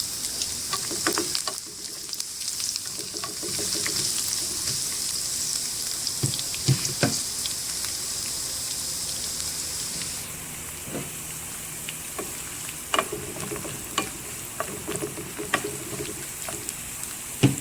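Chopped garlic sizzling in hot cooking oil in a pan, stirred with a utensil that clicks and scrapes against the pan now and then. The sizzle drops quieter about ten seconds in.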